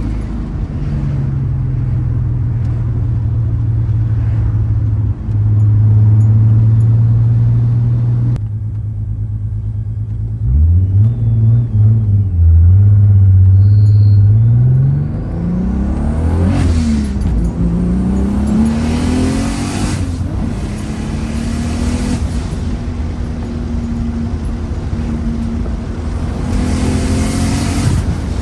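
Turbocharged VR6 engine and exhaust running under way, the engine note holding steady and then rising and falling sharply through the revs about ten seconds in. Brief hissing rushes of noise come around the middle and again near the end.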